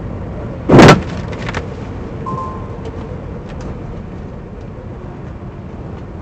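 A loud thud as a wave of snow thrown by a snowplow slams into the semi-truck's windshield and cab under a second in, followed by a few smaller hits of snow and ice. The truck's steady road and engine noise runs underneath.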